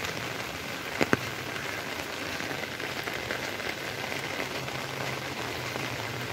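Steady rain falling on a wet street and pavement, an even hiss throughout, with a brief sharp double knock about a second in.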